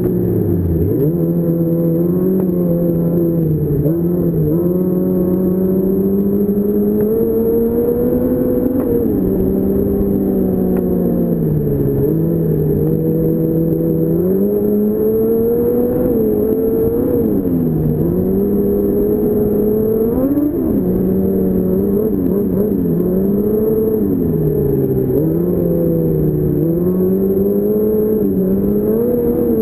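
2006 Yamaha Apex Attak snowmobile's four-cylinder four-stroke engine running under way, its pitch rising and dropping every few seconds as the throttle is eased off and opened again.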